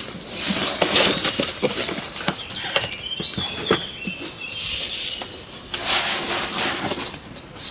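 A cardboard shipping box being unpacked by hand: cardboard rustling and scraping, with irregular knocks and bumps as the flaps are opened and an inner box is lifted out.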